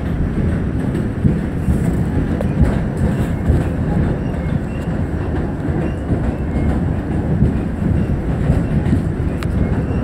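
Inside a New York City subway car running on elevated track: the steady low rumble of the moving train, with an occasional faint click from the wheels.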